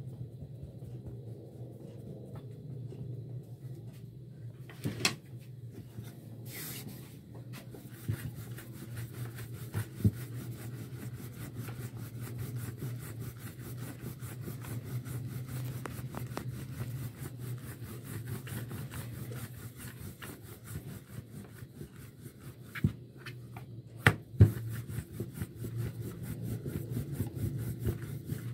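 Wooden rolling pin rolling out paratha dough on a floured sheet: soft rubbing with a few sharp knocks, over a steady low hum.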